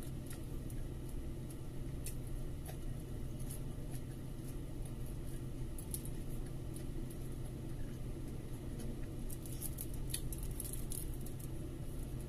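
Eating by hand: soft chewing and fingers picking at rice and tearing fried milkfish over aluminium foil, making small scattered clicks and crinkles, with a denser run of them about ten seconds in. A steady low hum runs underneath.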